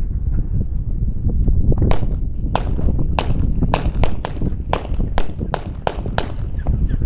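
Firecrackers going off: a quick, uneven string of about a dozen sharp bangs starting about two seconds in and lasting about four seconds, over a steady low rumble of wind on the microphone.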